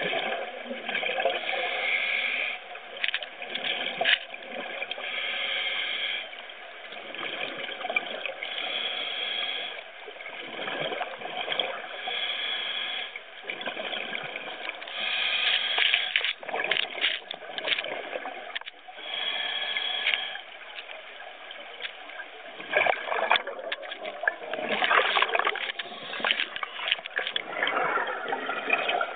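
Scuba breathing heard underwater: a diver's regulator breathing in a steady rhythm, each breath a gurgling, bubbling rush that swells and fades every few seconds.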